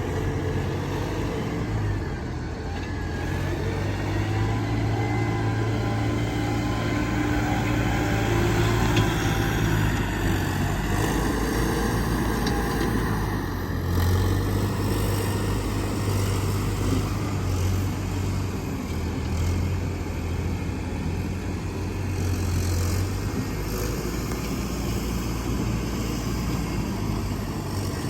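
Heavy diesel earthmoving machinery running steadily, its low engine hum swelling and easing as the machines work.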